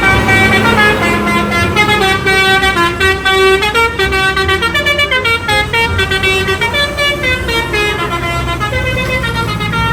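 A bus's Basuri telolet horn, a multi-tone horn, playing a melody of quickly stepping notes without a break, over a low rumble.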